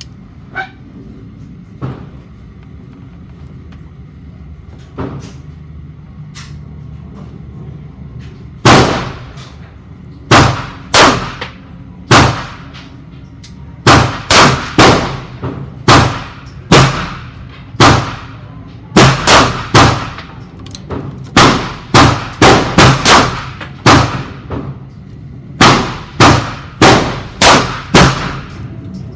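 Gunfire at a shooting range: a string of about twenty loud shots, irregularly spaced a half-second to a second or so apart, starting about nine seconds in, each with a ringing echo. Before it come a few light clicks.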